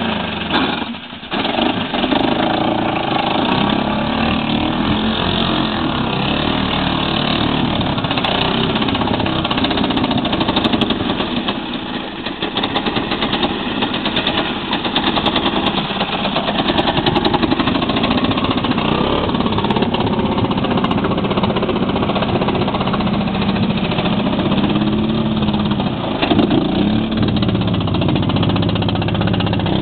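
ATV engine running and revving, its pitch rising and falling, with a brief drop in level about a second in.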